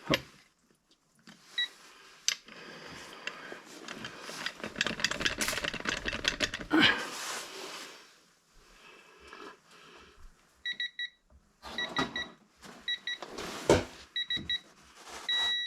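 Metal clicking and rattling of a ratchet and socket being worked. From about ten seconds in, a Quinn digital torque adapter beeps: repeated short beeps, then one longer held beep near the end. This is its warning that the torque is nearing and reaching its set value.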